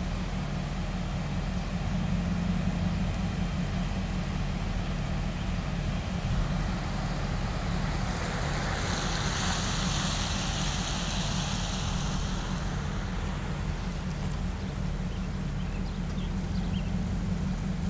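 Steady rushing of the flooded Black Fork river running high and fast, over a heavy low rumble. A hiss swells and fades again about halfway through.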